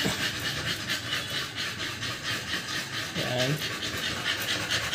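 Two-month-old American Bully puppies panting with fast, even breaths. A short vocal sound falls in pitch a little over three seconds in.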